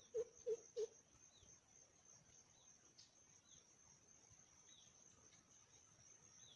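Wild chickens giving three short, low clucking calls in quick succession right at the start, over a steady high insect drone and scattered small bird chirps.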